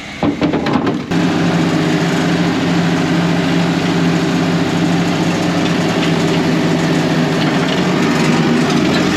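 An engine running steadily at an even speed, loud and close, with a constant hum. It cuts in abruptly about a second in.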